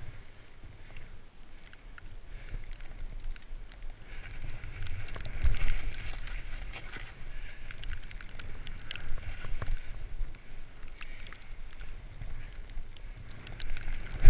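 Skis plowing and hissing through deep powder snow, with snow spraying over the camera and many scattered ticks. The sound grows louder about four seconds in and rises and falls with the turns.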